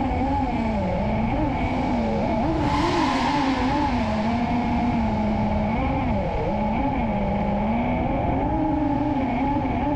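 FPV quadcopter's brushless motors and propellers whining, the pitch rising and falling constantly with the throttle as it flies. A brief rush of hiss about three seconds in.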